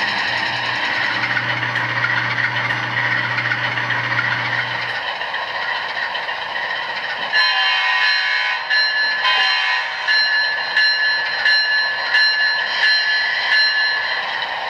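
LokSound sound decoder in an HO scale Amtrak P42 (GE Genesis) model diesel locomotive, playing its engine sound with a steady low hum that drops out about five seconds in. From about seven seconds, a pitched, multi-tone warning sound repeats in short ringing strikes, about one and a half a second.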